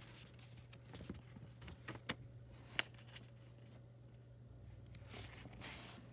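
A sheet of origami paper being folded and creased by hand: a few short sharp crinkles around the middle, then soft rustling of the paper sliding and being pressed flat near the end.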